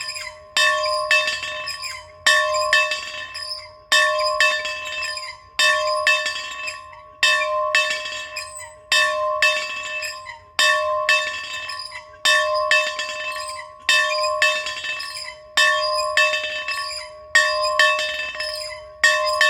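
A bell rung steadily, struck about once every 1.7 seconds, each stroke followed closely by a lighter second strike. The bell rings on and fades between strokes.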